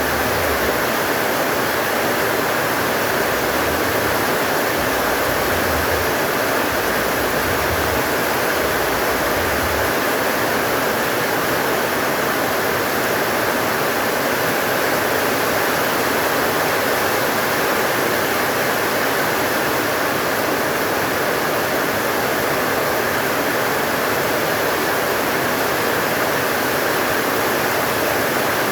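Heavy rain pouring down with strong wind, a steady even rush of water noise, with a few low rumbles in the first ten seconds or so.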